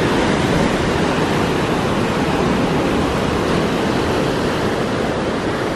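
Sea waves breaking and washing over shore rocks: a loud, steady rush of surf.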